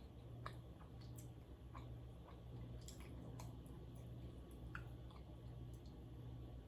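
Faint chewing with small wet mouth clicks and squishes, scattered irregularly, over a low steady hum.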